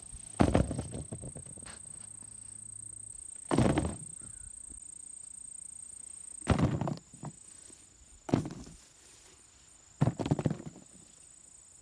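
Five brief rustling, snapping knocks a couple of seconds apart: peppers being pulled off a pepper plant by hand and dropped into a bowl.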